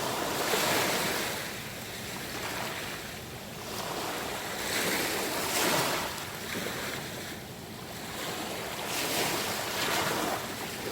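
Sea waves washing onto the shore, the surf swelling and falling back every two to three seconds.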